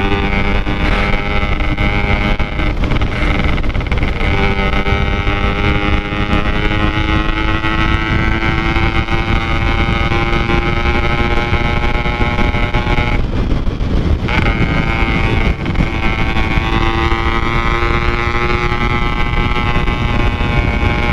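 Yamaha RX-King two-stroke single-cylinder engine with an aftermarket Packing Power exhaust, running under throttle while riding, its pitch climbing slowly. About thirteen seconds in the engine note drops out for about a second, then climbs again. Wind is on the microphone.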